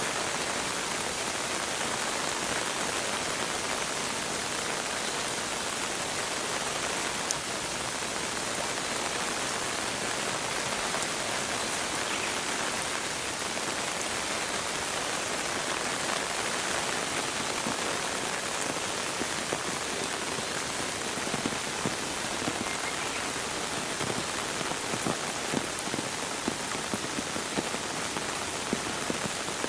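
Steady rain falling as an even wash of noise, with more distinct individual drops ticking and splashing in the last third.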